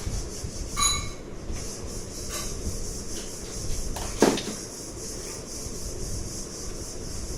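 Objects being handled and rubbed on a work surface, with a short ringing metallic clink about a second in and a knock, the loudest sound, a little after four seconds, over a steady hiss.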